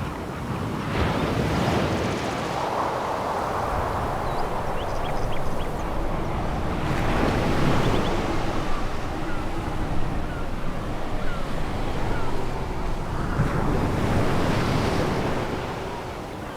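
Sea waves breaking and washing up a pebble beach, surging three times in a continuous rush of surf. Faint short chirps sound in the background.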